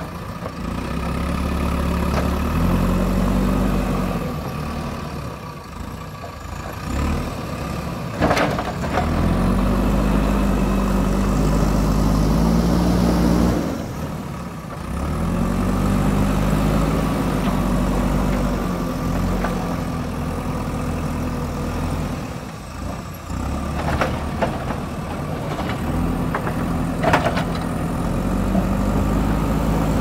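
JCB backhoe loader's diesel engine revving up under load and easing back toward idle several times as the front loader bucket pushes and scoops soil and rocks. A few sharp clanks stand out, about eight seconds in and twice more near the end.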